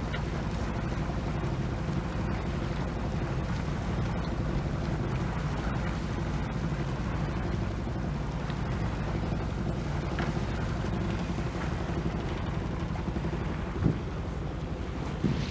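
The Westerly Centaur's inboard engine runs steadily as the yacht moves under way, with wind and water noise over it. There is a light knock near the end.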